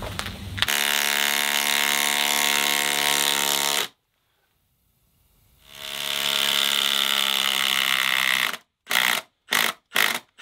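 Milwaukee M18 Fuel cordless impact driver hammering a half-inch by ten-inch lag bolt into a treated timber: a long run of rapid impacts, then a silent gap of about a second and a half, then another long run. Near the end come several short trigger bursts as the bolt is seated.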